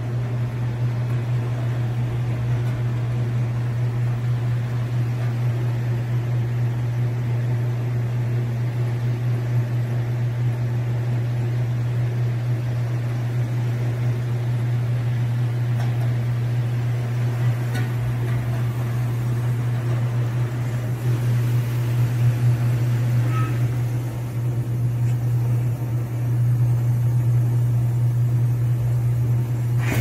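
Car mat washing machine running a wash cycle, with a steady low motor hum that grows louder in stretches over the last several seconds.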